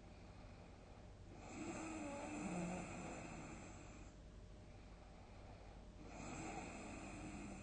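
A sleeping person snoring: two long, rough snores, the first starting about a second and a half in and lasting roughly two and a half seconds, the second starting about six seconds in.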